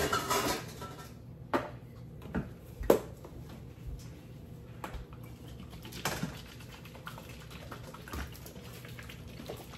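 Scattered kitchen knocks and clicks from utensils and dishes at work, a few sharp taps spaced a second or more apart over a low steady hum.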